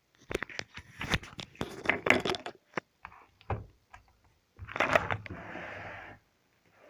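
Slime being squeezed and handled close to the microphone: a quick run of sticky clicks and crackles, then a longer squish about two-thirds of the way through.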